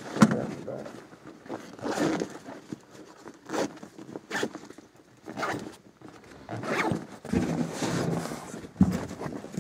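A zipper being pulled in a series of short, irregular strokes, with rustling from gear being handled and packed.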